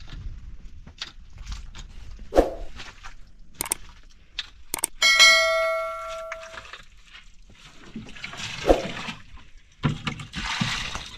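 A long-handled digging tool striking and scraping into dry, stony earth, several sharp knocks with gritty scrapes between them. About five seconds in, a click is followed by a bell-like ding that rings for about a second and a half, the sound effect of a subscribe-button animation.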